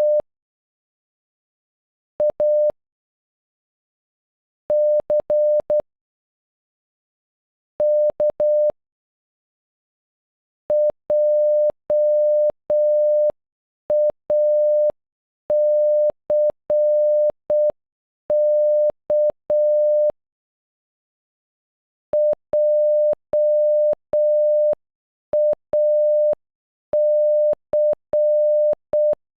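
Morse code beeps on a single steady electronic tone spelling "JACK" (.--- .- -.-. -.-). First each letter sounds on its own as a quick group of dots and dashes with long pauses between. From about eleven seconds in the word repeats at half speed, with much longer beeps, and plays twice.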